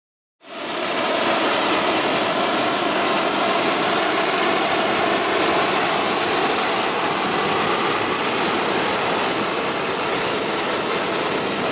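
A jet aircraft turbine running steadily: a loud rushing noise with a high, steady whine over it, coming in about half a second in.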